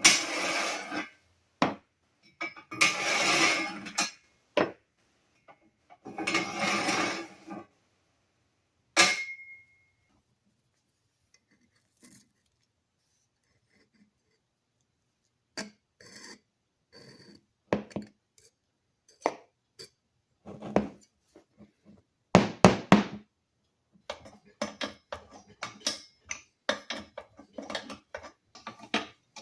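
Hand tools working on metal parts: a few scraping, rattling passes of a second or two each, a sharp clink with a brief metallic ring about nine seconds in, then a run of quick clicks and taps near the end.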